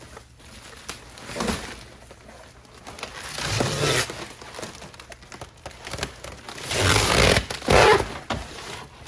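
Packaging being pulled and torn off a boxed glass shower door: rustling and scraping in a few bursts, a brief one about a second and a half in, a longer one around the middle, and the loudest near the end.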